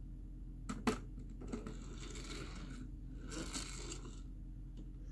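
Two sharp knocks just under a second in, then two stretches of rustling, from paper and crayons being handled.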